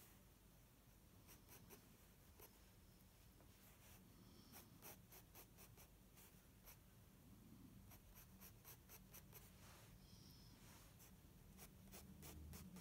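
Faint scratching of a Staedtler Mars Lumograph graphite pencil on sketchbook paper: quick short flicking strokes, laid down in clusters with brief pauses between them.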